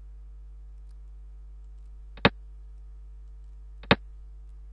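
Two sharp clicks from a xiangqi program's piece-move sound, one for each move, about a second and a half apart, over a steady low hum.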